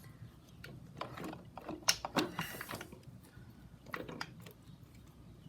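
Metal parts of a motorcycle primary drive clicking and clinking irregularly as they are handled and fitted, with a short scrape about two and a half seconds in.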